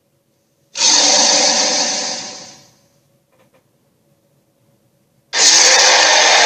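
Two bursts of rushing, hissing noise from a cartoon sea-creature sound-effect track. The first starts sharply about a second in and fades away over about two seconds. The second starts abruptly near the end and holds steady.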